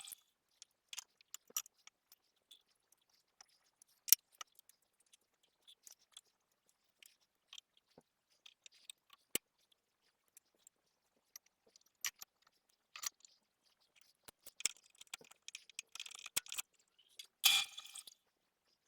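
Scattered light clicks, taps and knocks of bolts and tools being handled and set down on a workbench, with a louder clatter near the end.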